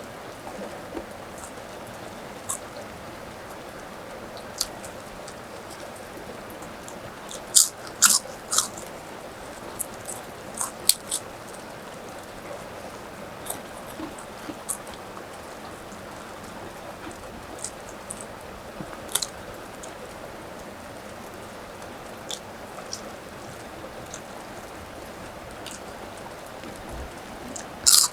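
Crisp bites and crunchy chewing of food, coming in scattered short clusters, over a steady hiss of rain.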